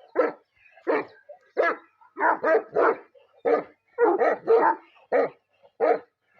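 A Pakistani bully dog (bully kutta) barking repeatedly: about a dozen barks, some coming in quick runs of two or three.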